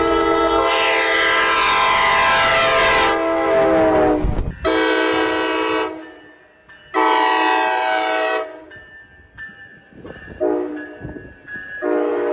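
Coaster commuter train's multi-chime air horn sounding a held chord that drops in pitch as the locomotive passes and pulls away. It then sounds four more blasts, long, long, short, long, the standard grade-crossing signal.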